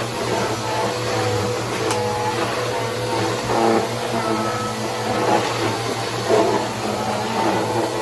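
Upright vacuum cleaner running steadily while it is pushed back and forth over a bare concrete floor, its motor drone shifting slightly with each stroke.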